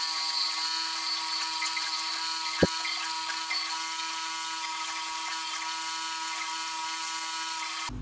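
Bench grinder with a wire brush wheel running steadily, a constant whine over a hissing wash of noise. One sharp click about two and a half seconds in. The sound cuts off abruptly near the end.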